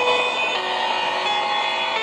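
A recorded song playing, with held notes that change every half second or so.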